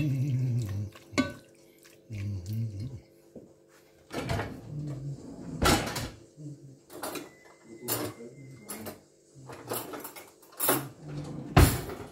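Spatula and pot knocking and scraping as diced chicken is stirred while it browns, with about eight sharp clacks in the second half.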